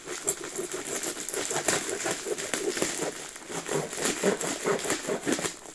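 Phone packaging being handled and unwrapped, crinkling and rustling continuously in many quick, irregular crackles.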